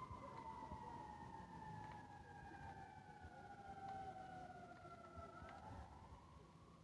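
Faint emergency-vehicle siren in a slow wail, its pitch falling steadily for about five seconds, then turning and rising again near the end.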